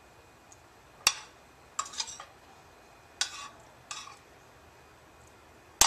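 A metal spoon stirring moist cornbread dressing in a metal skillet: about five sharp clinks of spoon on pan, roughly a second apart, with soft scraping between them.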